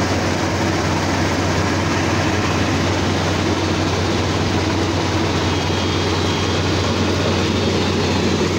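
Kubota DC-35 rice combine harvester's diesel engine running at a steady speed close by, a constant low hum that neither rises nor falls.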